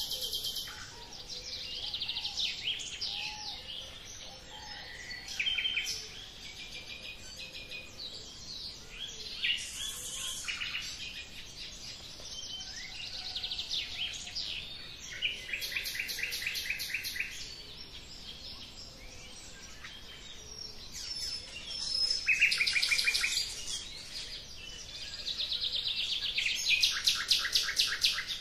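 Songbirds singing: many overlapping chirps and fast, rapidly repeated trills, with several birds calling at once.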